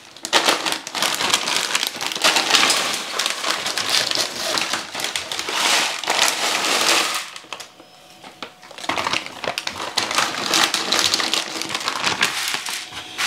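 Frozen mixed vegetables and peas poured from plastic bags onto metal freeze-dryer trays, a dense clatter of small frozen pieces mixed with the crinkling of the plastic bags, with a short lull about halfway through.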